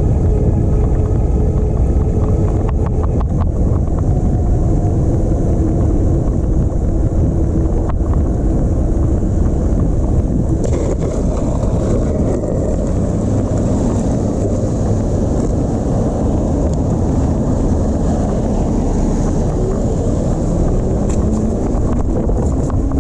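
Wind buffeting the microphone and steady riding noise from an all-wheel-drive e-bike under way, with a faint motor whine that rises in pitch near the end.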